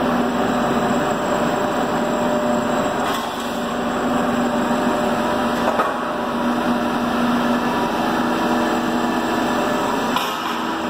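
Forklift running its hydraulics to rotate a tyre-handling clamp attachment: a steady mechanical hum with a few light knocks.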